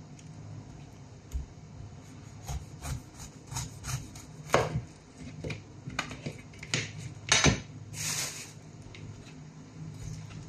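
Big kitchen knife cutting through a whole pineapple on a cutting board: irregular crunching strokes through the rind and knocks of the blade and fruit against the board, the loudest knocks about four and a half and seven and a half seconds in, with a short scraping rustle just after.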